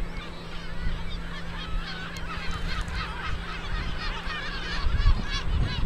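A seabird colony calling: many short, wavering calls overlapping continuously. Under them, wind rumbles on the microphone, gusting about five seconds in, over a steady low hum.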